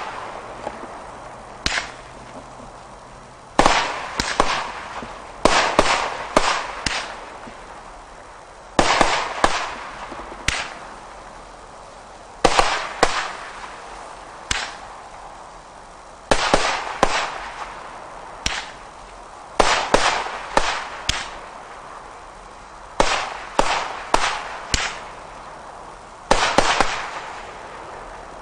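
Single-ignition consumer firework barrage box firing volleys of shots that burst with sharp bangs and crackle, in groups of several bangs about every three seconds with short lulls between.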